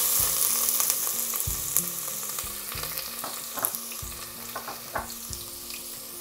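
Chopped onions sizzling in hot oil in a stainless steel pan, loudest just after they go in and slowly dying down, with a few light clicks.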